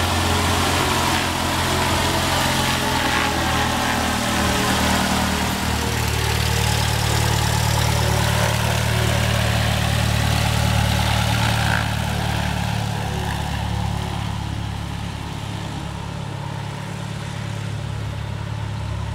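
Falconar AMF-S14 Maranda light aircraft's propeller engine running at idle as it taxis, a steady low drone that gets slightly quieter after about twelve seconds.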